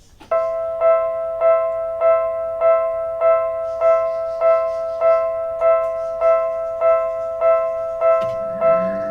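Japanese railway level-crossing warning bell starting up suddenly and ringing on at a steady pace, a little under two strikes a second. A low rumble joins near the end.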